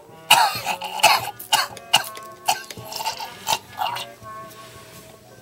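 A man's smoker's cough: a fit of about nine coughs in quick succession, the first the loudest, stopping about four seconds in, with music playing underneath.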